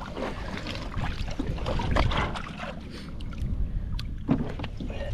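Snared alligator thrashing in the water against the side of a boat: irregular splashing and knocks on the hull, with wind rumbling on the microphone.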